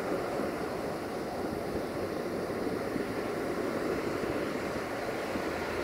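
Steady rushing noise of wind on the microphone, with a Duewag BR628 diesel railcar approaching underneath it.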